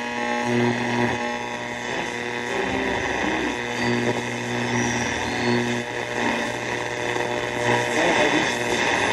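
Transglobe nine-band radio on the AM band, tuned down the dial between stations: static hiss with buzzing hum and steady whistling tones that come and go. Faint speech starts to come through near the end.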